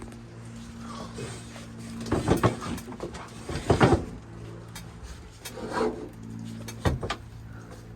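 A steady low electrical hum, broken by four clusters of sudden knocks and rustling thumps, the loudest about two and almost four seconds in.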